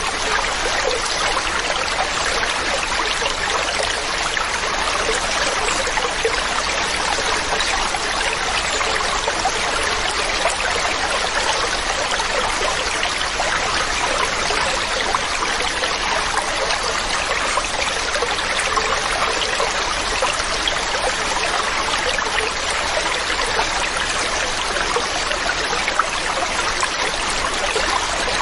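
Waterfall: a steady, unbroken rush and splash of falling water.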